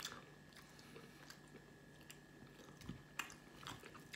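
Faint chewing of a mouthful of sausage, with a few soft clicks and scrapes of a knife and fork cutting the next piece on a serving tray, over a faint steady hum.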